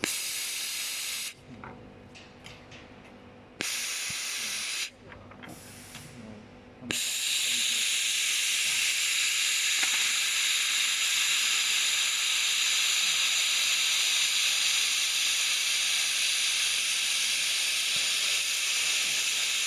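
Hissing from a handheld fiber laser welder at work on 1.5 mm copper: two short bursts of about a second each, then a long steady hiss from about seven seconds in.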